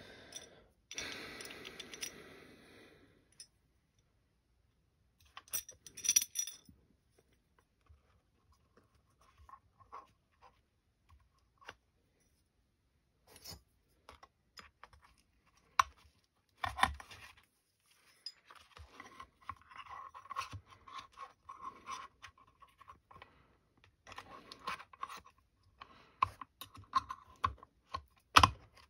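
Small metal accessory rail and its screws being handled and fitted: scattered light clicks and scrapes of hardware and hand tools, with a denser run of small clicks in the second half as screws are started by hand with a long hex key.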